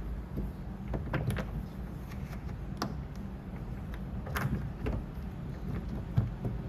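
Scattered light knocks and clicks of hand tools working on a car door panel during paintless dent repair, about five of them, spread out over a steady low hum.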